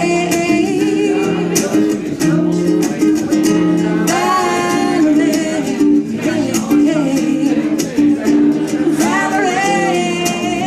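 Live music from a guitar-and-voice duo: a steadily strummed guitar under a woman's lead line of long held notes that slide up into pitch, sung close into a microphone.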